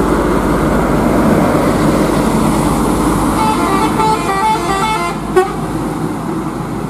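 Mercedes-Benz OC 500 RF coach passing close and pulling away up the bend, its engine loud at first and then fading. About three and a half seconds in, a multi-note musical horn plays a short tune of quick stepped notes for about two seconds, ending with a sharp click.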